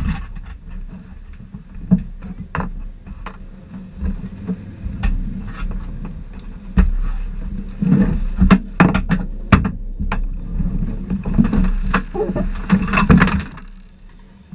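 Human-powered racing vehicle rolling over the road: a steady low rumble with irregular rattling knocks, busiest in the second half.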